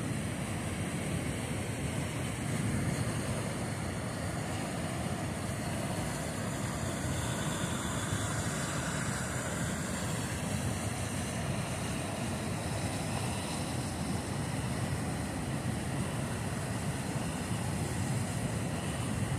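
Steady rush of fast-flowing, choppy river water, an even noise that holds at one level.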